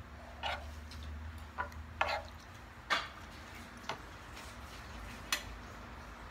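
A spoon clinking against dishes during a meal: about six short, light clinks spread over a few seconds, the loudest about three seconds in.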